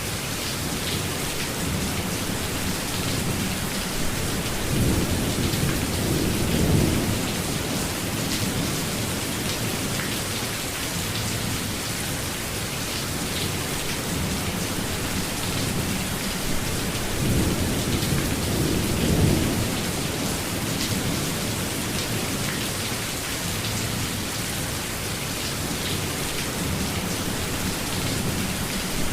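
Steady rainstorm: rain falling hard and evenly, with two low rolls of thunder, one about five seconds in and another around eighteen seconds in.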